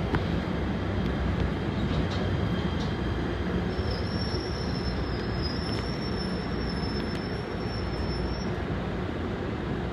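PATH PA-5 subway car rumbling along the rails in a tunnel, slowing. About four seconds in, a high steady squeal sets in and stops after about five seconds.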